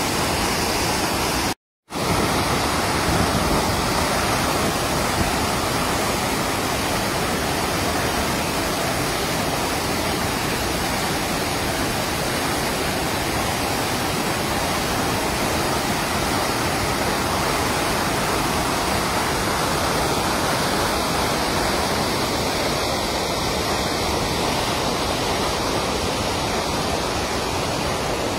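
Floodwater rushing and churning through a canal outlet: a steady loud rush of turbulent water, cut off briefly about two seconds in.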